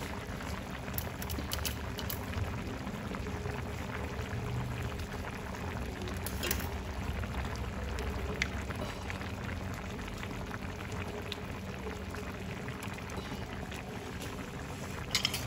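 Pot of coconut-milk stew (sayur lodeh with beef scraps) bubbling steadily at a boil, with a few faint clicks along the way.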